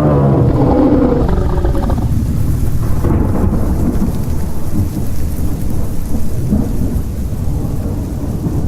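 Horror sound-effect ambience: a low, drawn-out ghostly moan dies away in the first two seconds, over a continuous deep rumble like a thunderstorm.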